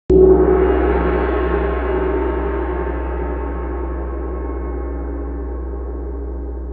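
Intro sound effect: one deep strike, about a tenth of a second in, that rings on and slowly fades.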